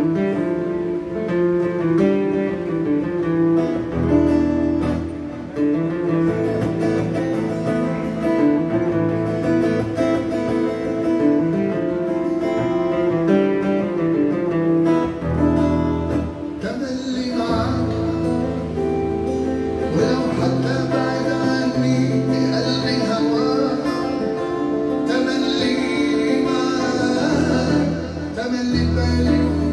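Acoustic guitar played live, with a man's singing voice joining in about halfway through.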